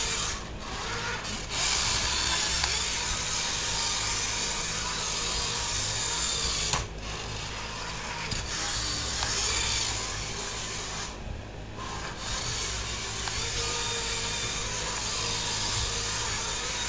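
Electric motor of a small RC drift car whining as it drives and drifts across a smooth floor. The whine dips briefly about a second in, again around seven seconds, and again around eleven to twelve seconds.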